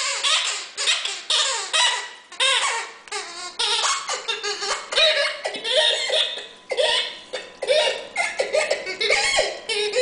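A squeaky rubber ball toy being chomped over and over by a dog, giving a fast, unbroken run of high, bending squeaks.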